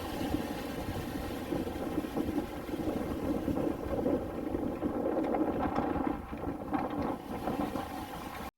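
Steady car engine and road noise while driving, cutting off abruptly near the end.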